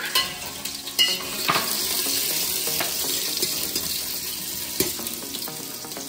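Chopped garlic, ginger, green chilies and a whole dried red chili sizzling in hot oil in a stainless steel pot, with a few sharp clicks of a metal spoon against the pot. The sizzle swells about a second in.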